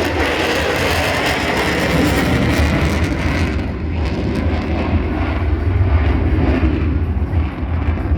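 Jet noise from an F-35C Lightning II's single F135 afterburning turbofan during a low airshow pass: a deep rumble under a wide rushing hiss, the upper hiss dropping away about three and a half seconds in.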